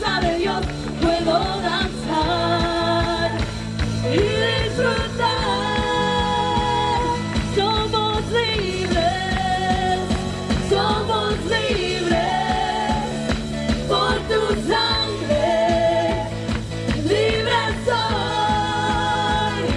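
Live worship music: a singer holding long notes over a full band with bass and drums keeping a steady beat.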